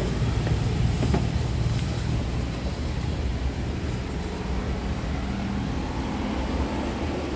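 A Daihatsu Sirion hatchback's tailgate latch being released and the hatch lifted open, with faint clicks in the first second or so, over a steady low vehicle hum.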